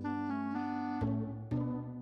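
Instrumental background music: chords struck about once a second, with a short run of stepping notes in the first half.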